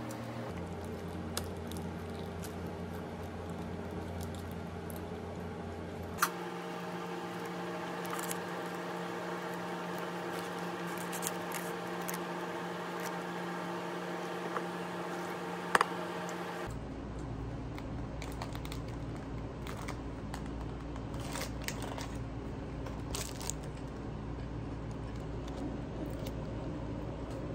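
Steady indoor hum with a few light clicks and handling noises. The background hum changes abruptly about 6 seconds in and again about 17 seconds in.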